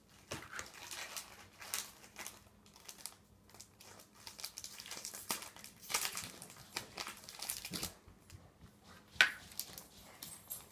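Foil Pokémon booster-pack wrappers crinkling and rustling as they are handled and torn open, with cards being shuffled. The rustling comes in irregular spurts, and a sharp crackle about nine seconds in is the loudest moment.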